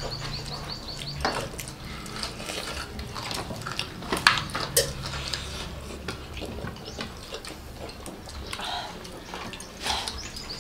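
Several people eating crispy fried chicken with their hands: crunching bites, chewing and lip smacking, with the sharpest crunches about four seconds in.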